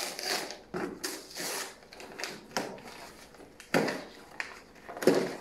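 Gift wrap and tissue paper rustling and crinkling as a present is unwrapped by hand, with two louder knocks from the box being handled, about four and five seconds in.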